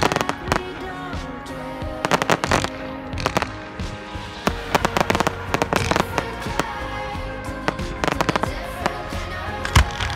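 Fireworks going off in clusters of sharp bangs and crackles, with one especially loud bang near the end, over music playing.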